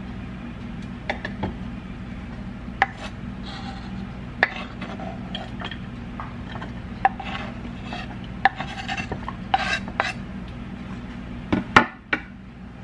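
Pampered Chef knife chopping jalapeño peppers on a cutting board: irregular sharp taps of the blade on the board with some scraping, the loudest clatter near the end. A steady low hum runs underneath.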